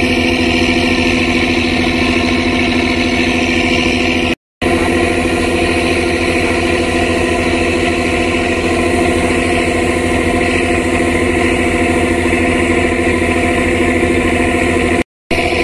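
River passenger launch's engine running steadily, heard on board as a constant even hum. The sound drops out briefly twice, at about four seconds in and near the end.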